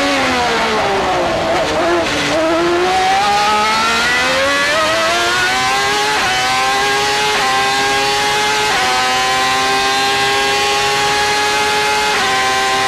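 Ferrari 412 T2's 3.0-litre V12 Formula 1 engine heard onboard. Its revs fall in steps through downshifts under braking over the first couple of seconds, then climb hard under acceleration with quick upshifts about six, seven and a half and nine seconds in. It holds a steady high pitch before another upshift near the end.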